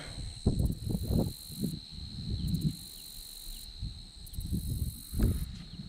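Footsteps through grass and reeds, irregular low thuds about two a second, with a steady high-pitched insect trill behind them.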